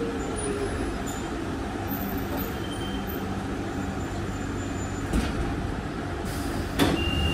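London Underground Central Line tube train (1992 stock) running through the tunnel as it slows into a station: a steady rumble of wheels and motors, with a whine falling in pitch in about the first second. Two sharp knocks come near the end, the second followed by a thin high steady tone.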